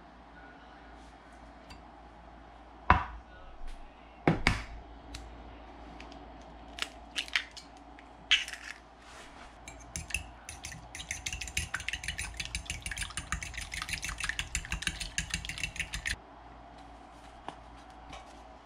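A few sharp knocks, then a metal fork beating an egg in a ceramic bowl: rapid clinking against the bowl for about six seconds that stops suddenly.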